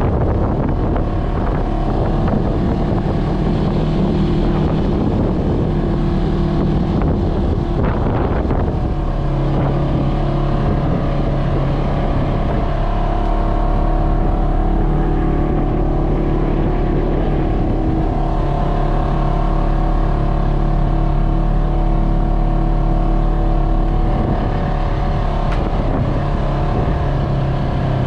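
Polaris RZR 900 side-by-side's engine running steadily, its pitch stepping up and down a few times, with some wind on the microphone.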